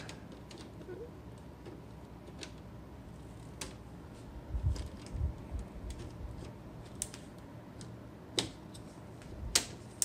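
Mesh air filter being pushed back by hand into a ceiling fan coil's plastic grille: scattered light clicks and taps from the filter frame and its clips, with a few dull thumps around the middle.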